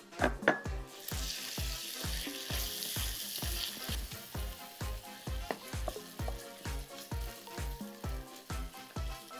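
Lamb pieces sizzling in a hot frying pan with tomato paste and soy sauce as a ladle stirs them. The sizzle is strongest from about one to four seconds in, with a sharp clink just after the start. Background music with a steady beat plays under it.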